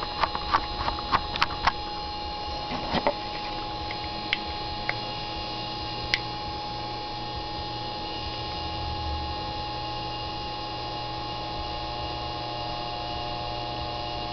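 A 30 V Globe DC motor drives a timing belt over pulleys, running steadily at about 7,000 RPM with an even hum made of several fixed tones. A quick run of sharp clicks and knocks comes in the first two seconds, then a few single ticks.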